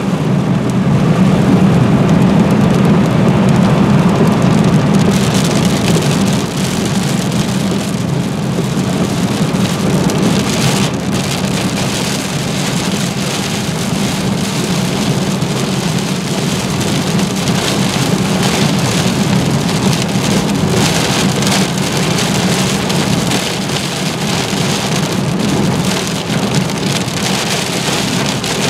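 Heavy rain pelting a car's windshield and body, heard from inside the car over a steady low rumble. The rain turns harsher and hissier about five seconds in.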